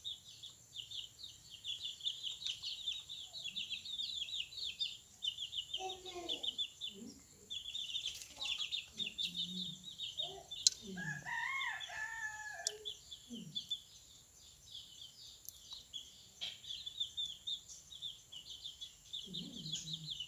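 A rooster crows once, about halfway through, over continuous fast, high-pitched chirping in the background.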